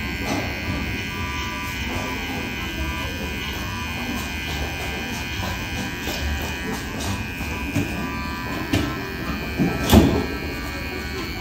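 Electric hair trimmer buzzing steadily as it trims along the neckline, with a brief knock near the end.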